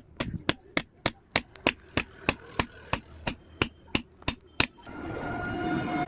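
Blacksmith's hammer striking a hot axe head on an anvil in a steady rhythm, about three sharp metallic strikes a second. The hammering stops about four and a half seconds in, and a steady hissing sound with a faint tone takes over.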